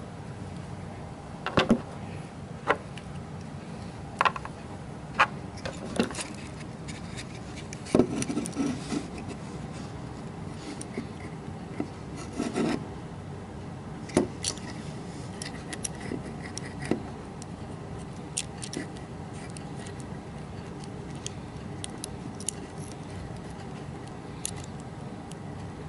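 Small clicks, taps and rubbing of plastic and metal parts as a model steam locomotive and its tender are handled and their wire connector is plugged together. The sharp clicks come at irregular moments, most often in the first half.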